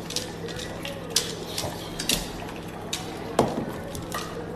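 Irregular clicks and knocks of small hard objects, about a dozen scattered through, over a faint steady low hum.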